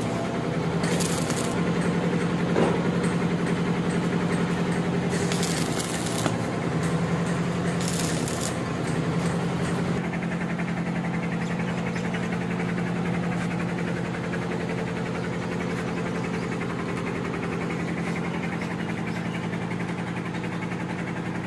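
A machine with a low, steady hum, like an engine running, throughout. A few short bursts of hiss come in the first half.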